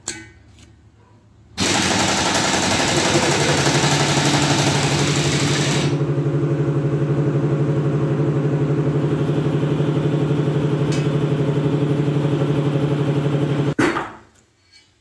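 A loud motor or engine running close by. It starts abruptly with a rushing noise for about four seconds, settles into a steady pulsing hum, and stops suddenly near the end.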